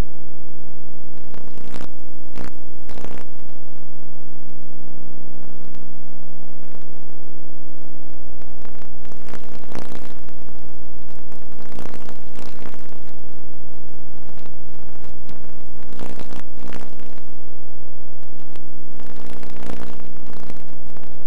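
Loud, steady electrical buzz with many evenly spaced overtones: hum in the recording rather than any sound from the field. Short crackles of noise break through it a few times.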